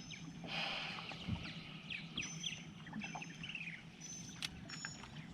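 Birds chirping and calling in short, quick notes, over a faint steady low hum, with a brief rush of noise about half a second in.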